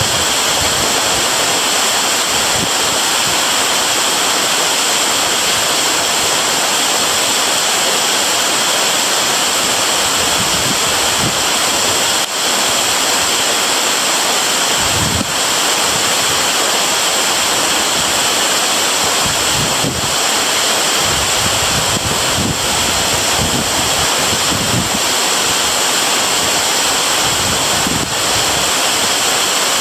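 Waterfall crashing in a steady, loud rush of falling water, with occasional low thumps from wind on the microphone.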